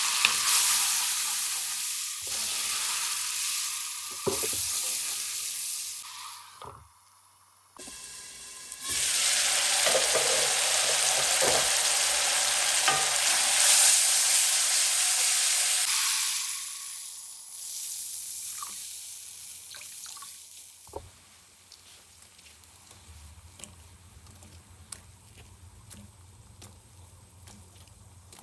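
Food sizzling in hot oil in a pan, with occasional stirring clinks. The sizzle breaks off about seven seconds in, comes back loud, then dies away over the following several seconds. Only quiet small ticks and clinks remain in the last third.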